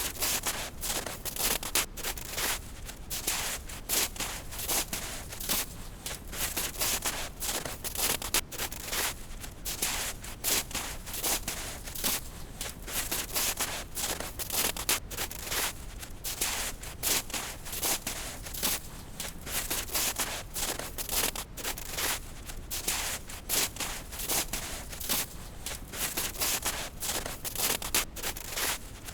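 Footsteps crunching in snow at a steady walking pace, each step a crisp, crackly crunch. Beneath them runs a steady low rushing noise (brown noise).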